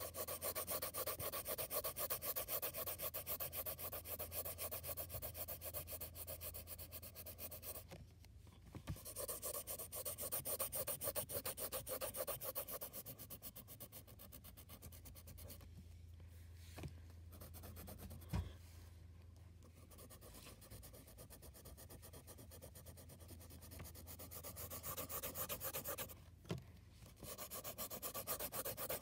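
Pencil shading on paper: rapid back-and-forth scratchy strokes, with short breaks about a third of the way in and near the end, and a softer stretch in the middle.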